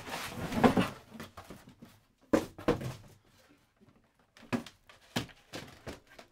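Handling sounds: plastic stretch wrap crinkling as it is pulled and wound around a wooden box, with a few short knocks and clicks against the wood.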